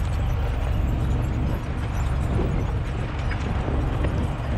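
Can-Am Maverick Sport UTV driving slowly down a rocky trail: a steady engine and drivetrain rumble with small knocks and rattles, and a few short high squeaks from the brakes.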